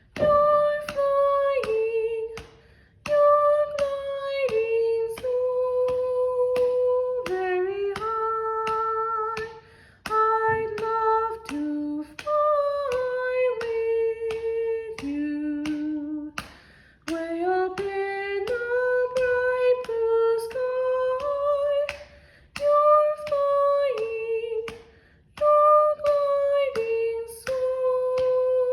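A woman singing a slow soprano melody in a high voice, holding each note and sliding between pitches, with a few short breaths between phrases. Her hands keep a steady beat of about two light claps a second.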